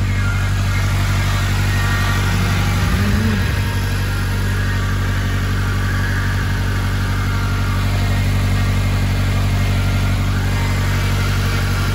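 Honda K20 four-cylinder engine running at a steady idle, with an unhealthy-sounding noise over it from the power steering pump. The reused old pump is blamed for the noise.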